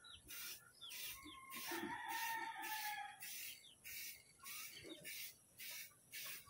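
Aerosol spray-paint can hissing in short repeated bursts, about two a second, as paint is dusted onto a car bumper. Birds chirp, and a chicken gives one drawn-out call a couple of seconds in.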